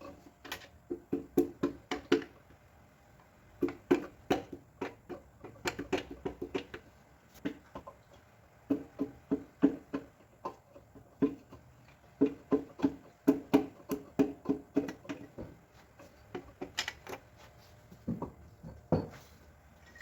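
Bursts of sharp metal knocks, about four a second in clusters, each ringing briefly in the bare cast engine block of a stripped-down G4NB engine as its pistons are worked on and taken out.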